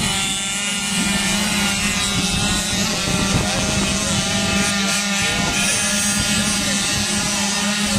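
Dirt-bike engines running hard in a steady drone as a pack of off-road motorcycles launches from a race start across sand.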